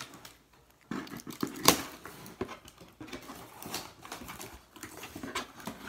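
Corrugated cardboard box being pulled open by hand: irregular scraping, rustling and clicks of the flaps and tape, with one sharp loud click a little under two seconds in.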